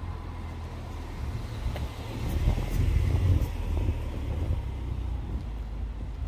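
A car passing on the street: low engine rumble and tyre hiss swell to a peak about two to three seconds in, then ease off over steady street noise.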